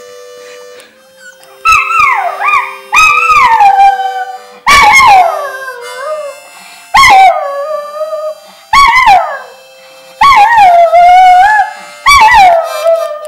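A small terrier howling along to a harmonica: seven loud howls, each starting high and sliding down in pitch, over softer steady harmonica notes.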